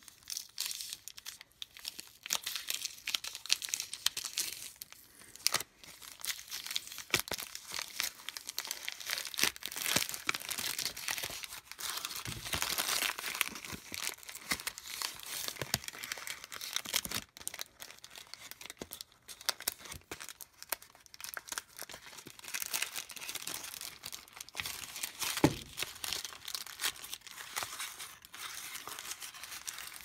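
A printed paper cheese wrapper being crinkled and torn as hands unwrap it and peel back its labelled flap: a continuous run of crackles with a few louder snaps.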